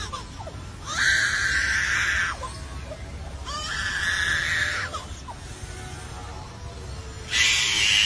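Superb lyrebird mimicking a crying baby: three wailing cries, each one to two seconds long, the last starting near the end.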